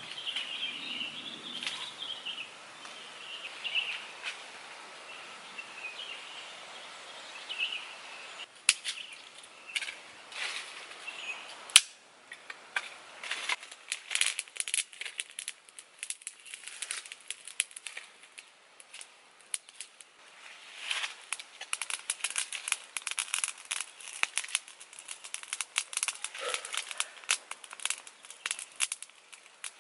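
Small fire of dry sticks burning, crackling and popping rapidly, with one sharp snap about twelve seconds in.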